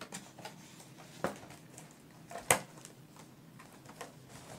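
Cardboard and plastic toy packaging being handled, with light rustling and scattered clicks; a sharp snap about two and a half seconds in is the loudest sound, with a smaller click about a second earlier.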